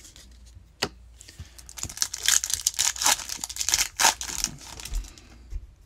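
Silver foil wrapper of a Topps Chrome baseball card pack being torn open and crinkled by hand: a run of crackling rips lasting about three seconds. A single sharp tap comes about a second in.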